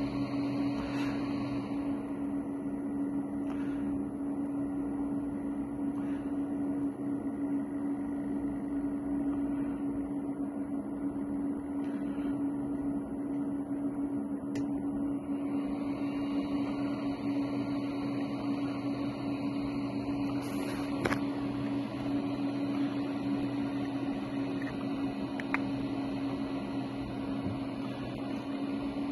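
A steady machine hum at one low pitch, with a few faint clicks.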